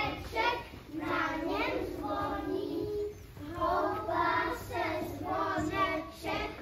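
A group of young children singing together, in phrases with short breaks between them.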